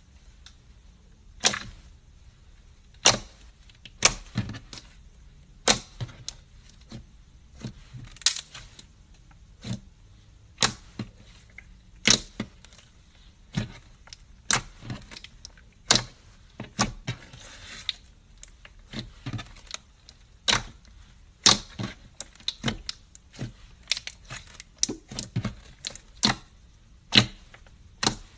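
Slime being played with by hand, giving sharp clicking pops as air pockets in it burst, irregularly about once a second. A short, soft squishing rustle comes a little past the middle.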